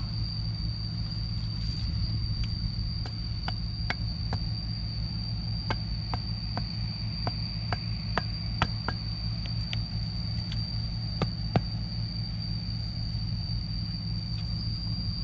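A knife blade chopping into a wooden stick: a dozen or so short, sharp, irregular knocks, most of them in the middle of the stretch. Under them runs a steady low hum and a steady high whine.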